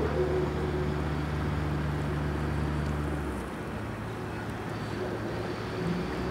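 A boat's engine running steadily at low revs, a low even drone whose note changes about halfway through.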